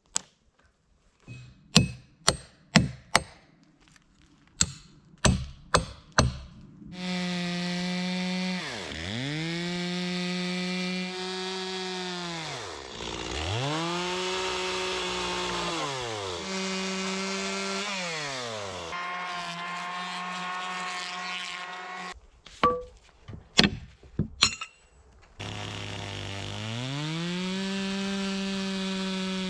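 A chainsaw in an Alaskan chainsaw mill runs at full throttle ripping a white pine log into boards, its engine speed dropping and recovering several times under the load of the cut. It is broken up by two runs of sharp knocks, one at the start and one about three-quarters of the way through, after which the saw rises from idle to full speed back into the cut.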